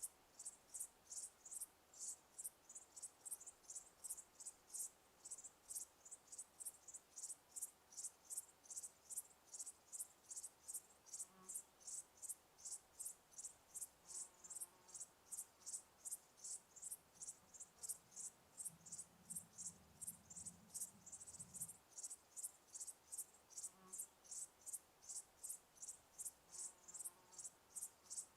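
Crickets chirping in an even, high-pitched rhythm, about three chirps a second, with a faint low rumble briefly about two-thirds of the way in.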